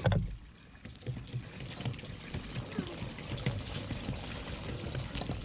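A brief knock with a short, high, steady beep just after the start, then water trickling steadily.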